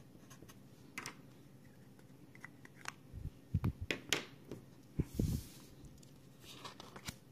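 Handling of paper scratch-off lottery tickets: scattered light clicks and taps with brief paper rustles, busiest in the middle, with a few dull thumps about three and a half and five seconds in.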